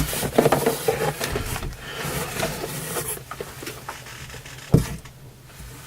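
Camera gear being rummaged out of a box: irregular rustling and scraping of cases and packing, with small clicks and one sharp knock about three-quarters of the way through.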